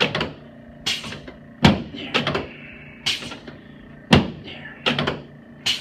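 A series of sharp clacks and thuds from a chiropractic adjustment to the lower back and pelvis on a treatment table, coming about once a second or faster, some in quick pairs.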